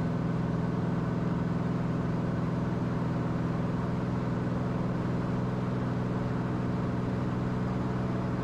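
Cirrus SR22T's turbocharged six-cylinder engine running at takeoff and climb power during the climb-out, a constant, even drone.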